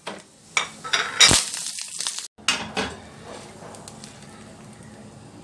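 A mustard-seed, dried red chilli and curry leaf tempering (tadka) sizzling in hot oil in an iron kadhai, with several metal clanks and knocks of the pan and spoon in the first two seconds. After a short break the sizzle goes on softer and steady as the tempering is poured over the chutney.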